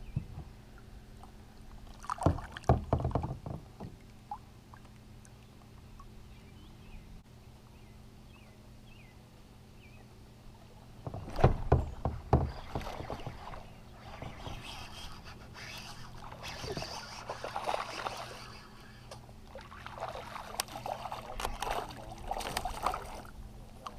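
Water splashing and sloshing around a kayak, with bunches of sharp knocks about two seconds in and again about eleven seconds in, and more splashing through the second half.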